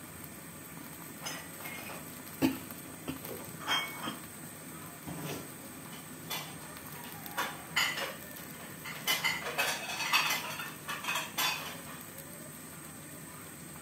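Metal kitchen utensils and cookware clinking and clanking at irregular moments: a few single knocks, then a busier run of clinks after about seven seconds.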